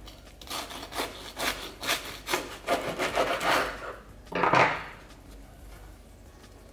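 Knife sawing through a toasted grilled cheese sandwich on a wooden cutting board: a run of short strokes, about two to three a second, then one louder crunch about four and a half seconds in as the cut goes through.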